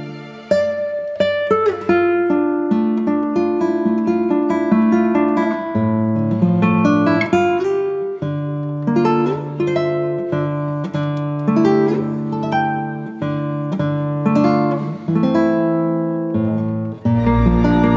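Instrumental background music: a melody of plucked guitar notes over held bass notes, growing fuller and louder near the end.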